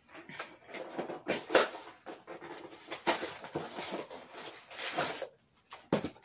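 Cardboard fruit-snack box being opened and handled, the packaging rustling and crinkling in irregular bursts, with a short knock near the end.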